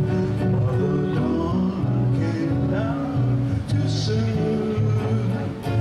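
Hawaiian steel guitar trio playing live: a steel guitar plays the melody with sliding notes over guitar and electric bass.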